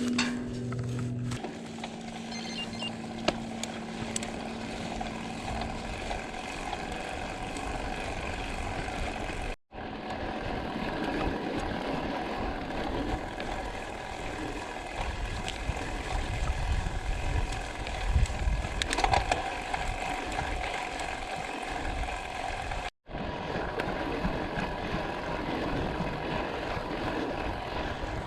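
Gravel bike riding on dirt: tyres rolling and crunching over gravel, with mechanical ticking from the drivetrain and freehub. The sound breaks off for an instant twice.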